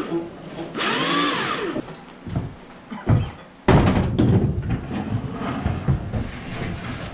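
Electric winch motor whining up and back down in pitch in a short pull, then a sudden louder rumbling and clattering about three and a half seconds in as the heavy machine is dragged on its skids and rollers.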